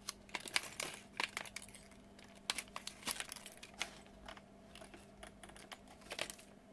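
A static-shielding plastic component bag crinkling as it is handled and emptied, with small electronic parts clicking onto the desk.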